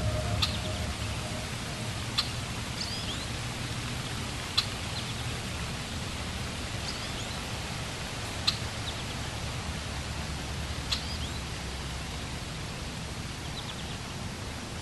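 Steady outdoor background noise: an even rushing hiss with a low hum beneath it. Sharp clicks come every two to four seconds, and a few faint short chirps are heard now and then.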